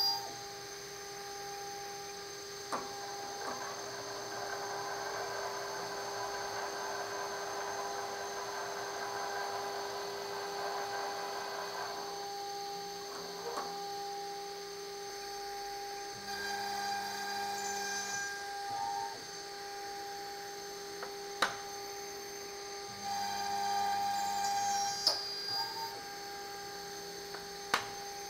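The spindle of an all-in-one gantry wood-processing machine runs with a steady whine while boring 10 mm-deep holes in a wooden panel. A rougher cutting noise is heard from about three to twelve seconds in. A lower hum comes and goes twice, and there are a few sharp clicks.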